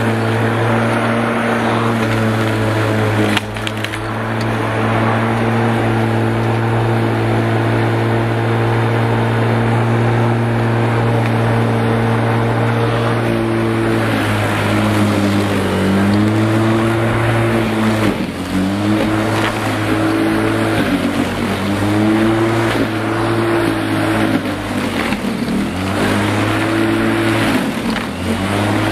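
Bosch Rotak 34R electric lawn mower running and cutting grass: its 1300 W motor and spinning steel blade give a steady hum with a hiss of cut grass. About halfway through, the pitch starts to dip and recover every two seconds or so as the motor slows under the load of each push into the grass.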